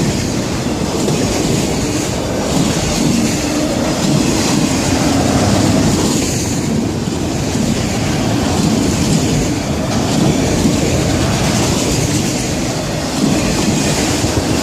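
CSX freight train's cars rolling past close by: a steady, loud rumble of steel wheels on rail.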